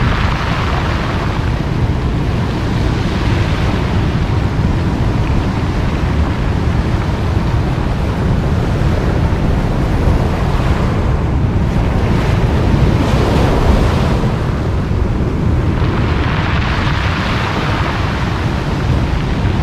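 Surf breaking and washing up a cobble beach, swelling and fading several times, over a steady heavy rumble of wind on the microphone.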